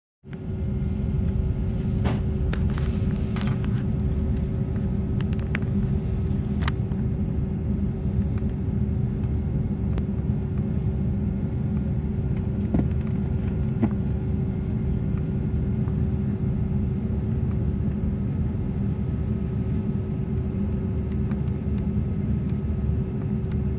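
Airbus A320 cabin noise while taxiing and lining up on the runway: a steady low rumble with a constant hum from the engines at idle and the aircraft systems. A few clicks sound in the first seconds.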